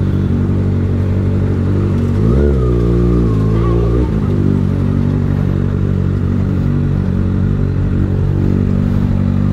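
Kawasaki Ninja ZX-6R inline-four with a Graves Motorsport aftermarket exhaust running steadily at low revs. About two seconds in, the revs rise briefly and fall back.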